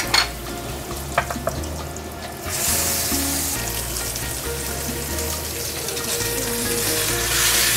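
Butter and olive oil sizzling in a hot cast-iron grill pan; about two and a half seconds in a ribeye steak is laid in and the sizzle turns suddenly louder and steadier as the meat sears.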